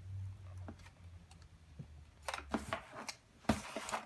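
Small toys and plastic packaging being handled: scattered light clicks and taps, with two short crinkling rustles about two and a half and three and a half seconds in. A low steady hum stops about two and a half seconds in.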